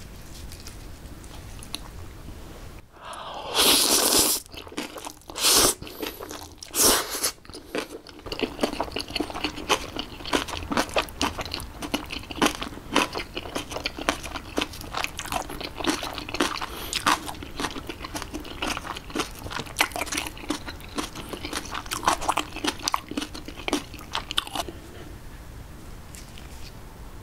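Mukbang eating sounds: three loud slurps of jjapagetti noodles with kimchi between about three and seven seconds in, then a long run of rapid crunching as the mouthful of spicy napa cabbage kimchi and noodles is chewed. The crunching stops a few seconds before the end.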